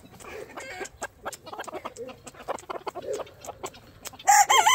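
A flock of chickens clucking and calling, with short ticks among the calls, and a much louder rooster-like call breaking in near the end.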